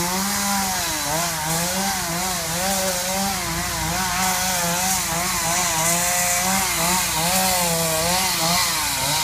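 Two-stroke chainsaw running and cutting wood, its engine pitch rising and dipping again and again as it bites into and eases off the cut.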